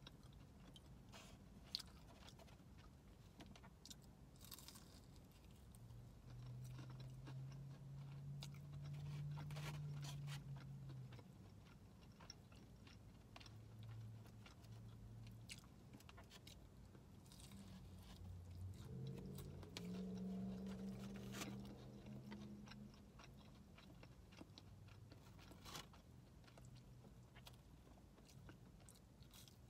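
Close-up eating sounds: chewing and biting into fried chicken fingers and crinkle-cut fries, with many small crunches and clicks. Twice a low steady hum comes in and fades, about a quarter of the way in and again past halfway.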